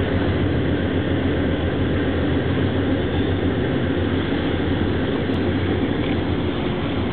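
Steady low rumble of ship engines from a large tanker and its attending tug manoeuvring slowly at close range.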